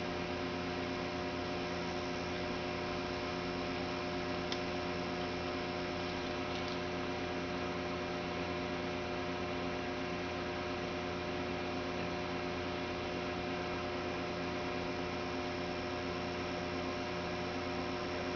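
An engine running steadily at one constant speed, giving an even, unchanging hum.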